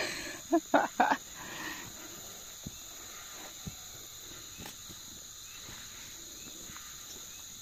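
Steady, high-pitched insect chorus from crickets and similar insects. There are a few brief louder sounds in the first second or so.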